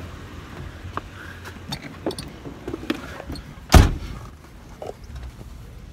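Camper van with a low steady rumble, small clicks and rattles, and one loud short thump a little under four seconds in.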